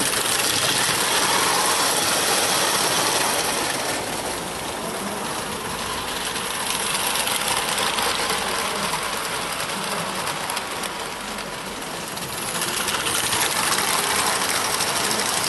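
Vintage 0 gauge tinplate live-steam toy trains running past on tinplate track: a continuous clatter of wheels over the rails. It swells as a train passes close and dips briefly before swelling again near the end.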